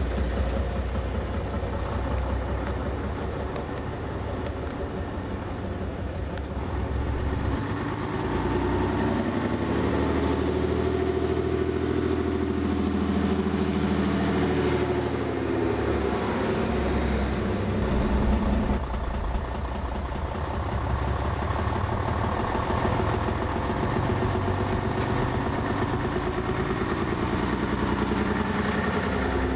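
AEC Routemaster double-decker bus's diesel engine running as the bus moves off and drives along, its pitch rising and falling in the middle as it revs.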